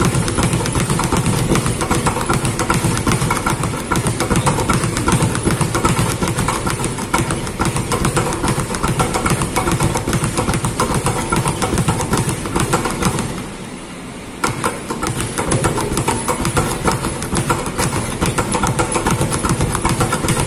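Speed bag being punched in a fast, steady rattle as it rebounds off a wooden board. The hitting goes briefly quieter about two-thirds of the way through, then picks up again.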